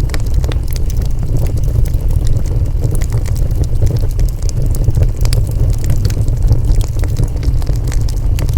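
Wood fire burning, a steady low roar of flames with frequent sharp crackles and pops from the burning wood.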